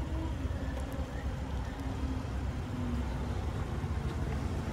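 Steady low rumble of road traffic with a faint engine hum that drifts slightly in pitch.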